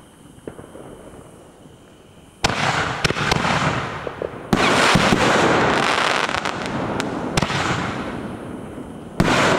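Consumer firework cake firing: a sudden loud shot about two and a half seconds in, then another about four and a half seconds in that breaks into several seconds of dense crackling from the bursting stars, and one more loud shot near the end.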